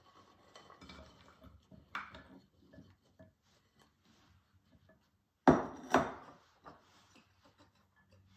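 Sliced raw potatoes sliding and rustling out of a glass mixing bowl into a glass pie plate, with small clinks of glass. About five and a half seconds in come two sharp glassware knocks, half a second apart.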